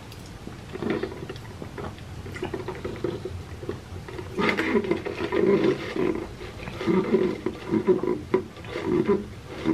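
A person gulping a drink from a cup in large swallows, a run of loud wet gulps about two a second from about halfway through, after softer lip and mouth sounds.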